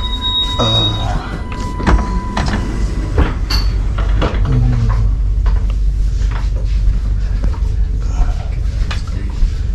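Interior of a moving passenger train: a steady low rumble with frequent knocks, clunks and rattles, and a thin high whine during the first two seconds.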